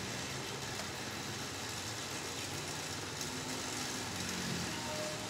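Steady background hiss with a faint low engine-like hum.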